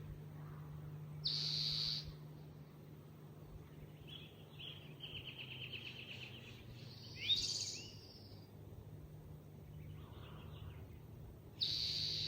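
Wild birds singing in woodland: a short high call about a second in and again near the end, a rapid trill in the middle, and a quick rising note just after it. A steady low hum runs underneath.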